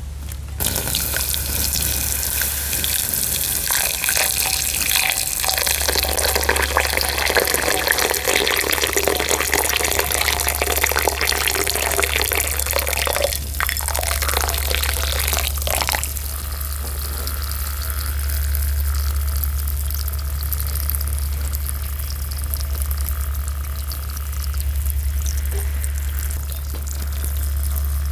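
Water pouring into a glass bowl over a dry lump of clay for about fifteen seconds. After that, quieter bubbling as the clay soaks and breaks down. A steady low hum runs underneath.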